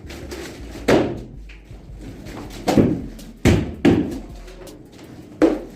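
Five dull knocks at uneven intervals, each with a short ring after it.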